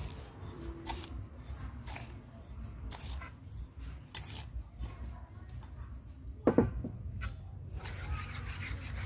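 Light clicks and taps as brown granules are tipped from a small bowl onto batter in a steel bowl. About six and a half seconds in comes one short, louder call that slides down in pitch. Near the end a wire whisk starts swishing through the batter.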